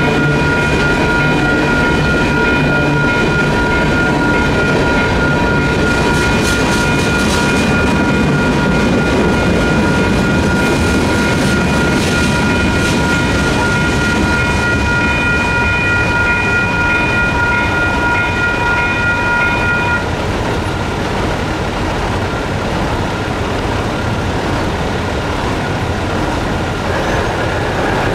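Freight cars rolling past over the crossing, with the crossing's WCH electronic bells ringing steadily. The bells stop about two-thirds of the way in, leaving the low rumble of the waiting trucks idling.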